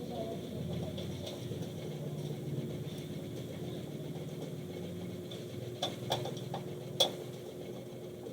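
Hands working inside a desktop PC case, mounting a part at the side of the case: light scratchy handling over a steady hum, with a few sharp clicks near the end.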